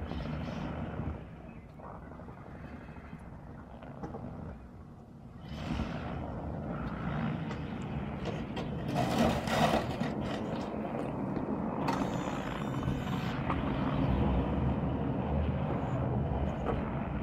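Pickup truck with a front-mounted snowplow working a snowy driveway: its engine runs throughout, quieter for a few seconds after about a second in, then louder again from about six seconds, with rushing noise that swells around the middle.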